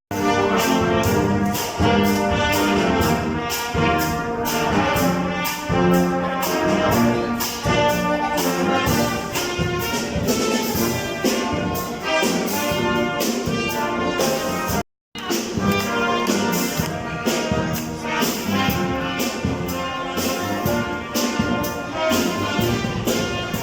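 Upbeat brass-led music with trumpets and a steady beat, broken by a split-second dropout about fifteen seconds in.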